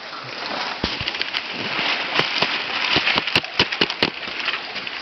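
Water splashing and sloshing as koi thrash in shallow water, with a rapid run of sharp slaps on the surface that starts about a second in and is thickest around three to four seconds in.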